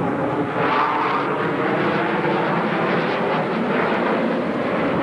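Loud, steady jet engine noise from US Navy F/A-18 Hornet fighters in flight.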